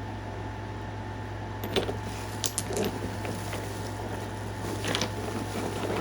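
Pieces of Knife River flint clicking and scraping against each other as they are handled in a box: a few short knocks and rustles starting about two seconds in, over a steady low hum.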